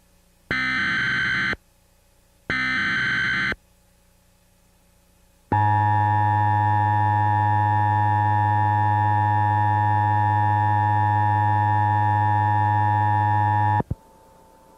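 Emergency Alert System alert: two one-second bursts of screechy digital header data, then after a two-second pause the attention signal, a loud, buzzy steady tone lasting about eight seconds. The tone cuts off with a click.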